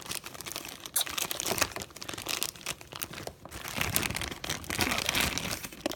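Packaging crinkling and rustling as it is handled, in an irregular run of crackles with no steady rhythm.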